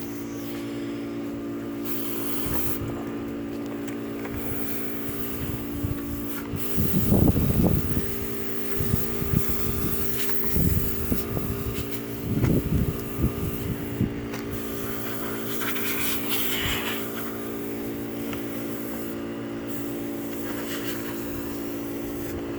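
A steady mechanical hum, as of a fan or motor running. Over it come irregular low bumps and scraping as a flat spreader works filler over the rudder, heaviest twice, about seven and twelve seconds in.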